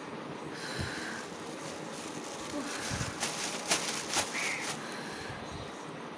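Thin plastic bag crinkling and rustling as it is handled, with a cluster of sharp crackles from about three seconds in and a couple of soft bumps.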